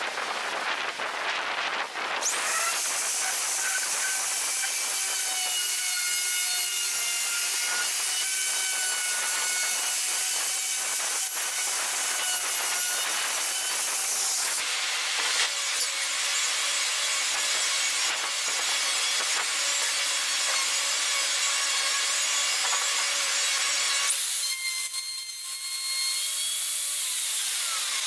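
Maktec MT362 plunge router running at speed and cutting into plywood: a steady high whine over the hiss of the bit in the wood. It starts about two seconds in, grows rougher about halfway through, and dips briefly near the end.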